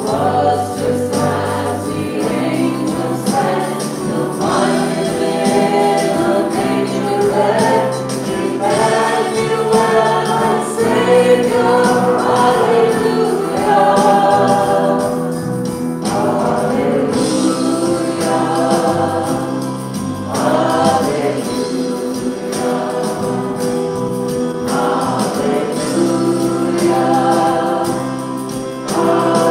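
Worship band playing a Christmas song, led by women's voices singing in harmony, the words moving into repeated "Hallelujah"s, over keyboard, guitar and drums.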